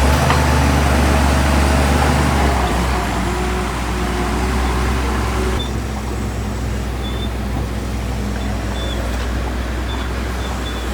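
Heavy earthmoving machinery running: a steady low diesel engine rumble with mechanical noise over it, easing somewhat about halfway through.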